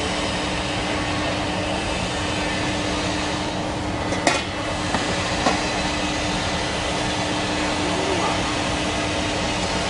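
Machinery on a water heater tank production line running with a steady noise and a constant low hum. A single sharp clack sounds about four seconds in, and a fainter one about a second later.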